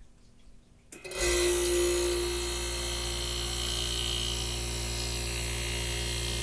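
A click about a second in, then the Tecumseh AJM15-94 hermetic compressor of a 1965 Fedders Weather Wheel air conditioner starts up. It is loudest for the first second, then settles into a steady running hum. The start shows the freshly cleaned thermostat now closing the compressor circuit.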